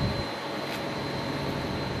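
Steady drone of an idling fire truck engine, with a thin, steady high-pitched whine above it.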